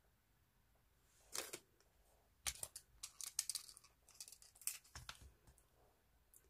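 Faint handling noise of earrings being put on: a scatter of sharp little clicks and short rustles close to the microphone, starting about a second in and dying away near the end.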